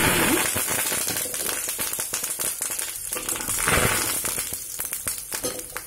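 Fresh curry leaves sizzling and spluttering in hot oil with a tempering of mustard seeds, cumin, urad dal and dried red chillies, loudest as they hit the oil, then a dense crackle that swells again about four seconds in as they are stirred with a spatula.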